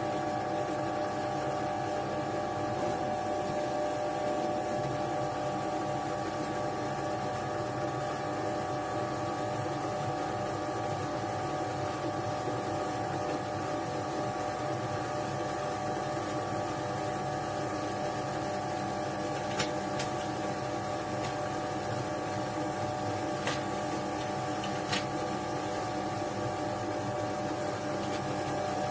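Scheppach DP19 Vario bench drill press running steadily on its first start-up, its motor humming and whining with several tones held level. A few short sharp clicks come in the second half.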